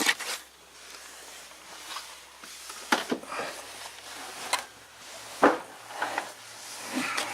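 Scattered knocks, clicks and rustling of someone handling things and moving about, the sharpest knock about five and a half seconds in, over a faint steady hum.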